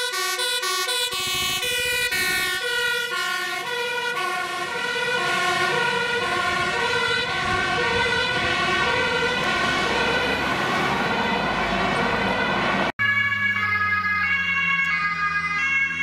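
Fire engine's two-tone siren alternating steadily between two pitches as the truck drives past, with its engine noise swelling in the middle. About thirteen seconds in the sound cuts to a police motorcycle's siren, its engine revving up.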